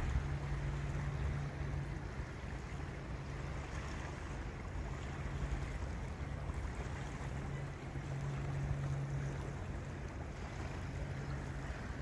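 A low, steady boat-engine drone that fades in and out, over wind and river water moving against the quay wall.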